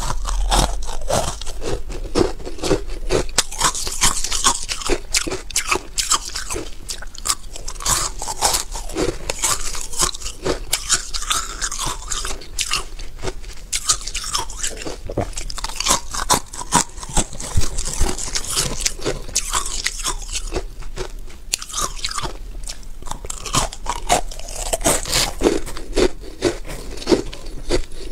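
Close-miked mouth crunching and chewing of powdery freezer frost (white ice), a dense run of crackly crunches from repeated bites, over a steady low hum.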